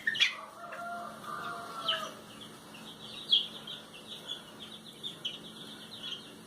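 Ducks calling: one longer call during the first two seconds, then a steady stream of short, high peeping calls.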